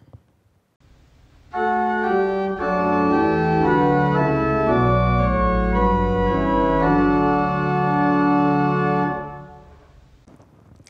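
Church organ playing a short passage of sustained chords, coming in about a second and a half in and dying away near the end.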